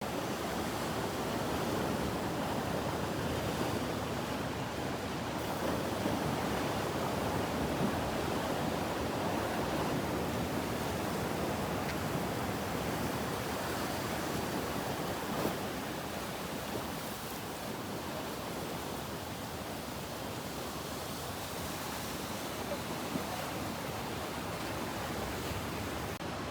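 Ocean surf washing on a beach: a steady rushing noise of waves, a little softer in the second half.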